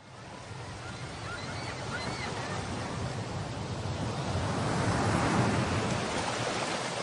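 Rushing noise like surf washing in, swelling to a peak about five seconds in and then fading, with a few faint chirping calls about a second or two in.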